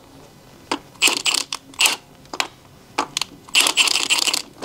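Cordless impact wrench hammering in short bursts, about four of them, with the longest near the end, as it loosens a truck wheel's lug nuts. A few single clicks fall between the bursts.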